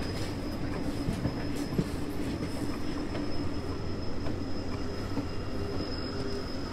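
Train running on the rails: a steady rumble with a low hum, scattered faint clicks from the wheels, and a thin steady high whine.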